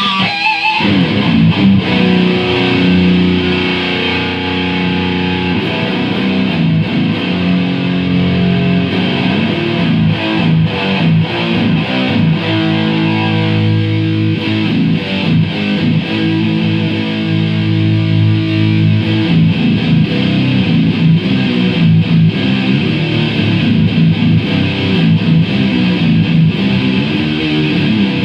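Distorted electric guitar played through an S&K VHD preamp into a rebuilt Acoustic 833 power amp, with long held chords twice and quicker riffing between.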